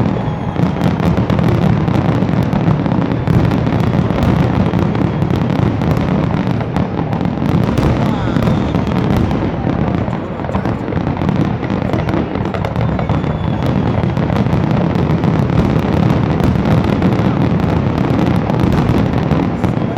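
Fireworks exploding in a dense, unbroken barrage, many booms and crackles overlapping with no pause, over the voices of a crowd.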